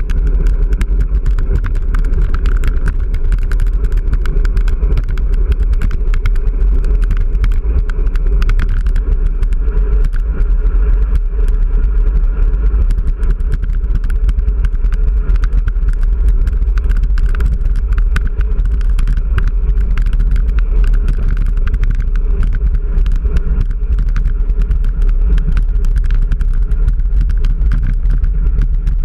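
Wind buffeting and road rumble on a handlebar-mounted GoPro while riding a road bike over rough, cracked asphalt, with steady rattling clicks from the bike and camera mount shaking.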